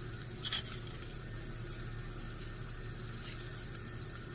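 Thick pork chops sizzling in an electric skillet, a steady frying hiss over a steady low hum, with one short click about half a second in.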